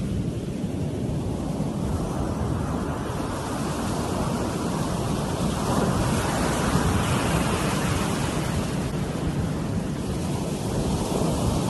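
Ocean surf breaking and washing up a sand beach, with wind rumbling on the microphone. The wash swells a couple of seconds in and again near the end.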